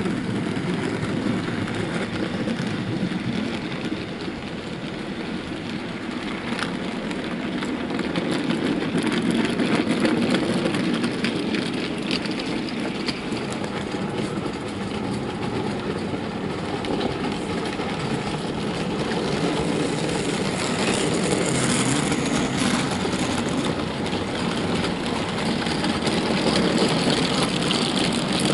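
OO-gauge model train running on layout track: the model diesel's motor humming steadily while its rake of wagons, loaded with real coal, rolls past with many small clicks over the rail joints. It grows louder about eight seconds in and stays strong to the end as the wagons pass close by.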